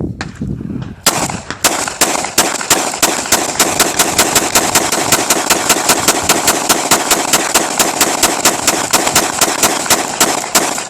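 Glock 19 9mm pistol fired rapidly from a 50-round drum magazine: a long, even string of sharp shots, several a second, starting about a second in.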